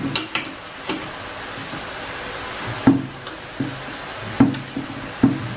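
A steel open-end wrench clinking and knocking against a corroded coolant pipe fitting on a Toyota 2C diesel engine block as the pipe is worked loose. There are several separate metal knocks, the loudest about three seconds in, over a steady background hiss.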